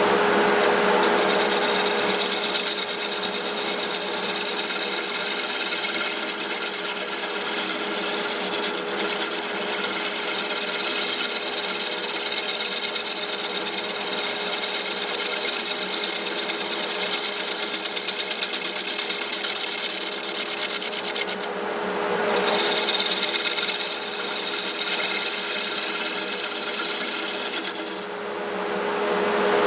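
Wood lathe running with a steady motor whine while a turning tool scrapes and cuts into a hard Australian burl. The cutting noise stops briefly about two-thirds of the way through and again near the end, leaving the lathe's hum.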